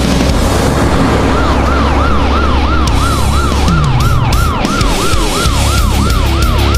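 Emergency-vehicle siren in a fast yelp, a falling wail repeating about three times a second, starting about a second and a half in, over a steady low rumble.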